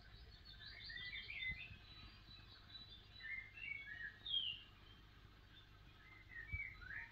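Small birds chirping and tweeting faintly in scattered short notes that glide up and down, over a low steady hum.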